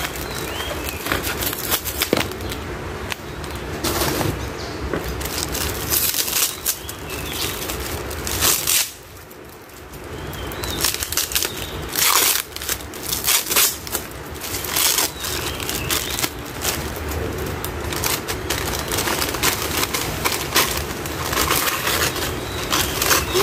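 Paper wrapping crinkling and rustling as it is pulled off a potted plant by hand, in irregular crackly bursts, with a short quieter pause about nine seconds in.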